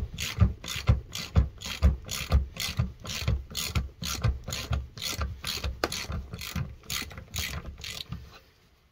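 Hand ratchet clicking as it turns a lug nut on a wheel stud, a steady run of clicks about two a second that stops about eight seconds in.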